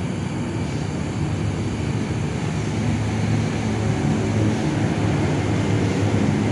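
A steady low rumble with a hum, growing slightly louder over the seconds.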